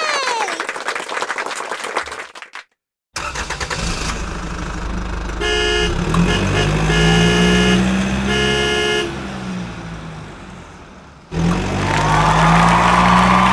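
A short falling boing at the start. Then a vehicle sound effect: an engine running with a horn honking four times, fading out and coming back in near the end.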